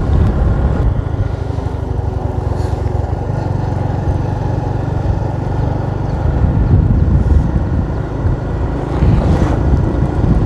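Riding on a motorcycle: wind buffeting the microphone in a steady low rumble over the bike's running engine, growing a little louder over the last few seconds.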